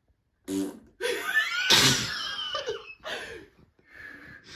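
A person blowing a raspberry, with short snorts and breathy mouth noises around it, in several separate bursts.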